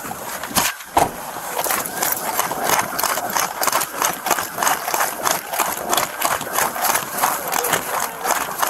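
Rhythmic knocking and rattling of a body-worn camera and duty gear jostling with each step as the wearer moves quickly on foot, about three to four knocks a second.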